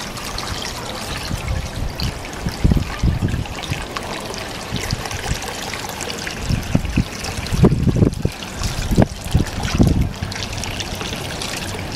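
Water trickling steadily out of a boat's scupper onto a manatee's mouth as it drinks. Irregular low splashes and sloshes, more of them in the second half.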